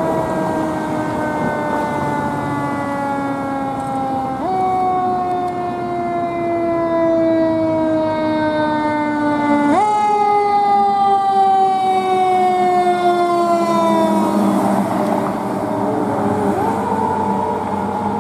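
Siren of a 2014 Pierce Saber fire engine on an emergency response, in the manner of a mechanical siren: a wail that slowly falls, is wound sharply back up twice, about five seconds apart, then rises and falls in shorter swells near the end.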